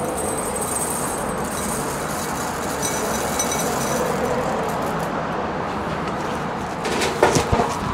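Freshly roasted coffee beans tipped from a stainless steel mesh colander, rattling and clinking into a ceramic bowl over a steady background noise. A few sharp knocks come near the end.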